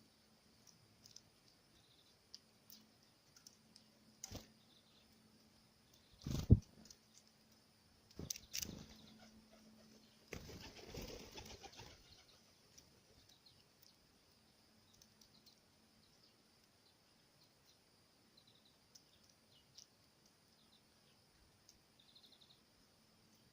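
Birds at a feeder: a few sharp knocks, the loudest about six seconds in, as they land and peck at the food, and a short flurry of wingbeats about ten seconds in. Faint high chirps come and go throughout.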